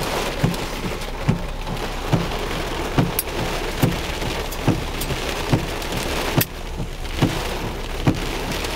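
Heavy rain drumming on a car's roof and windshield, heard from inside the cabin, with the windshield wipers sweeping and a soft thump repeating slightly faster than once a second.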